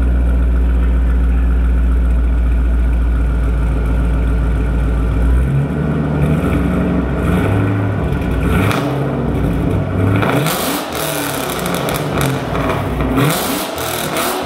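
Supercharged 4.6-litre V8 of a 2008 Roush 427R Mustang through a new axle-back exhaust, idling steadily, then revved up and down several times from about five seconds in.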